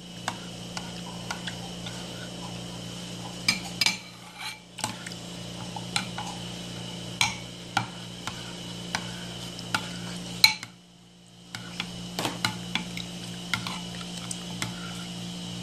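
Metal spoon stirring a creamy liquid in a ceramic dish, with irregular clinks and scrapes against the bowl's sides; the loudest clink comes about ten and a half seconds in, followed by a brief pause.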